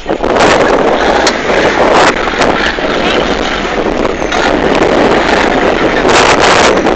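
Off-road 4x4 vehicle running loudly, heard as a dense, rough noise mixed with wind buffeting the microphone.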